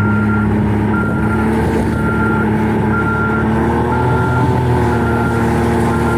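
A vehicle reversing: its backup alarm beeps steadily about once a second over the running engine, and the engine note rises slightly about four seconds in.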